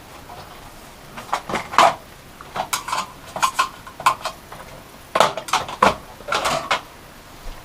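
Graphics card and its metal bracket clicking and knocking against a metal PC case as it is worked in and out of the expansion slot. The clicks come in four short clusters with pauses between them.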